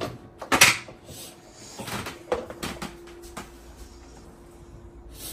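Kitchen handling noises while gram flour is being added to a bowl. There is one sharp clunk about half a second in, like a cupboard door or a container being set down, then a few lighter taps and knocks.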